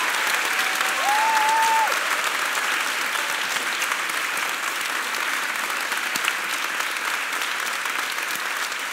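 Audience applauding steadily, with a brief high steady tone about a second in.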